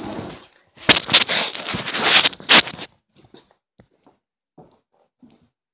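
Rustling and knocking from someone moving right up against the phone's microphone: about two seconds of scraping noise with several sharp knocks, the loudest a little past the middle, then a few faint taps.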